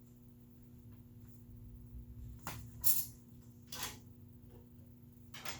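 Four brief handling knocks and rustles, the loudest about three seconds in, over a steady low hum.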